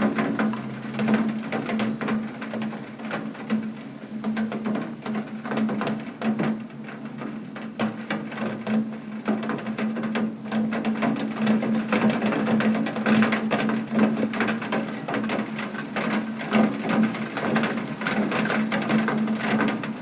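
Rain falling, with dense irregular taps of drops hitting a hard surface, over a steady low hum.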